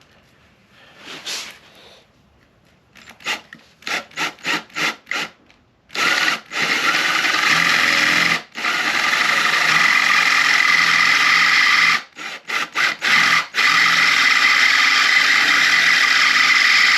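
Power drill boring into a motorcycle's aluminium swingarm. First come a few short trigger blips, then long stretches of steady grinding as the bit cuts, with a brief stop and a run of short stop-start bursts partway. The bit has a hard time biting and is worn out.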